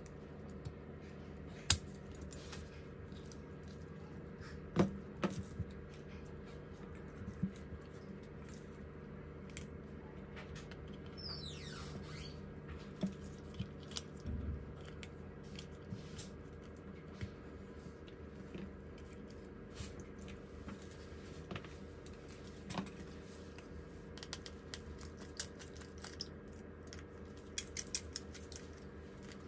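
Small tools handling phone parts: scattered light clicks and taps over a steady low hum, with a short falling squeak about eleven seconds in.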